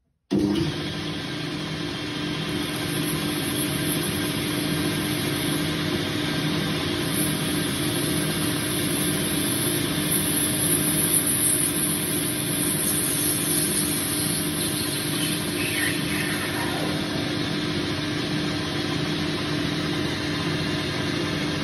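Boxford lathe running steadily with a constant motor hum while a cutting tool machines a shallow recess into the end face of a spinning brass bar, with a high hiss of cutting through the middle.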